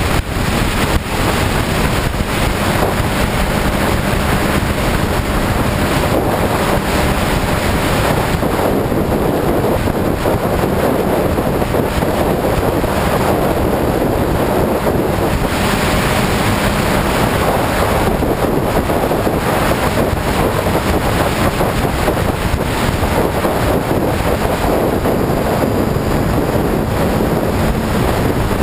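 Steady wind noise buffeting the microphone on a Honda CBR motorcycle cruising at highway speed, with the engine's steady drone faint underneath.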